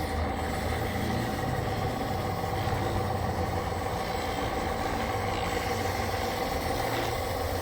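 A motor running steadily with an even hum and a few held tones, no change in pitch or level.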